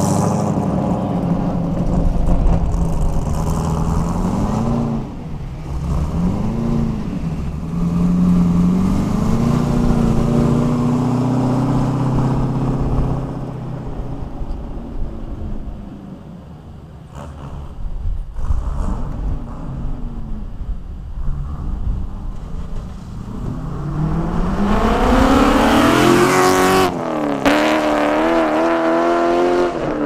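5.3-litre LS V8 in a BMW E36, breathing through homemade tri-Y-style headers, accelerating hard with the pitch climbing and dropping at each gear change. About halfway it fades to a distant drone, then grows loud again as the engine revs up through another shift near the end.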